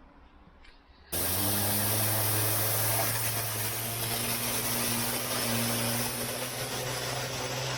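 Pressure washer running with a turbo nozzle blasting water onto paving: a loud steady hiss of spray over the machine's steady low hum, starting abruptly about a second in.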